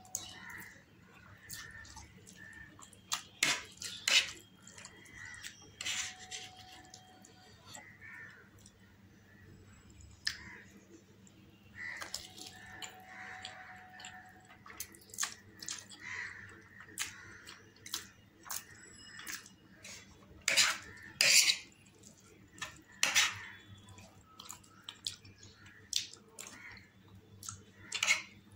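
Close-miked eating sounds: wet slurping and chewing of mouthfuls of masala instant noodles, with sharp clicks of a metal fork against the plate scattered throughout. The loudest clicks come about four seconds in and in a cluster after twenty seconds.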